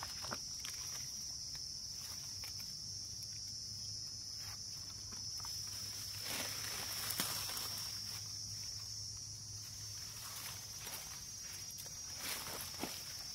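Steady high-pitched drone of insects, with a few scattered rustles and scrapes of dry leaves and bamboo litter being handled, the loudest about six and seven seconds in and near the end.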